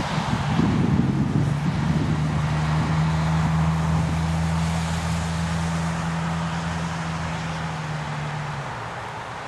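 Rain and wind noise on the microphone, with a low steady motor hum that starts about half a second in and stops shortly before the end.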